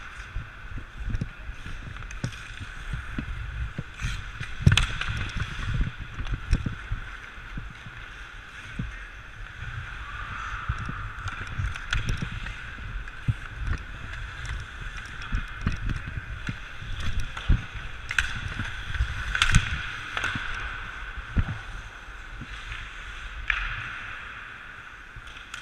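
Ice hockey skates scraping and carving the ice in repeated strokes, with a low rumble of wind and movement on the body-worn camera, and several sharp clacks of hockey sticks on the puck and ice.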